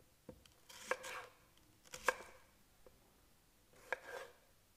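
Kitchen knife quartering onions and a tomato on a wooden chopping board: three main cuts spread over a few seconds, each a sharp knock of the blade on the board with a short slicing rasp, plus a fainter tap near the start.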